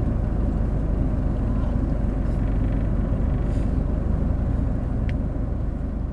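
Vehicle engine running with a steady low rumble, heard from inside the cabin.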